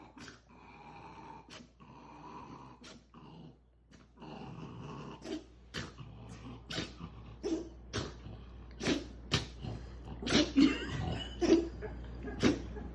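A dog growling low, then sneezing sharply again and again, the sneezes getting louder toward the end. These are angry sneezes, a warning to a rival trying to take her food.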